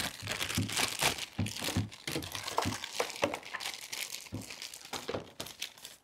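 Thin clear plastic bag crinkling and rustling in irregular crackles as it is handled and opened.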